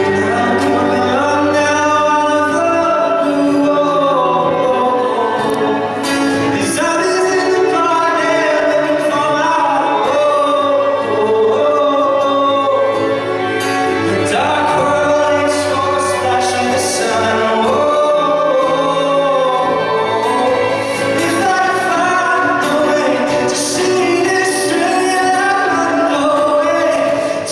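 A man singing a pop song live with acoustic guitar accompaniment.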